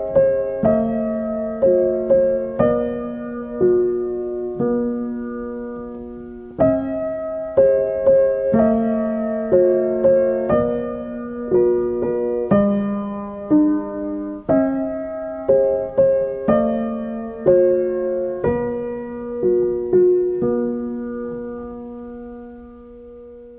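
Solo piano background music: a slow melody with a note struck about every second, ending on a held note that fades away near the end.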